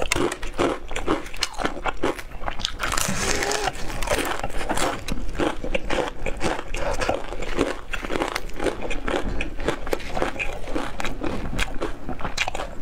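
Close-miked biting and chewing of crispy fried chicken, the battered coating crackling in quick, dense crunches.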